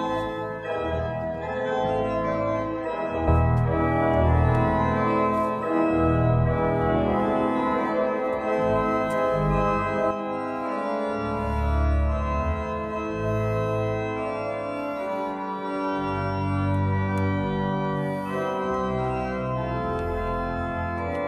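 Church organ playing a rehearsal piece: sustained chords with deep bass notes that come and go.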